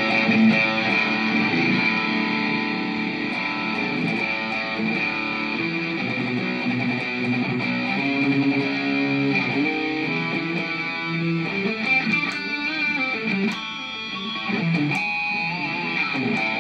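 Electric guitar played through a Zoom G5n multi-effects processor on a lead solo patch, single-note melodic lines with a quicker run of notes about two-thirds of the way through.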